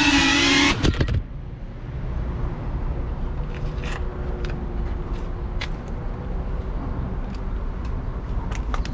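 Background music cuts off about a second in. A low steady rumble with a faint hum follows, with a few light clicks: a car idling, heard from under its rear bumper by the exhaust.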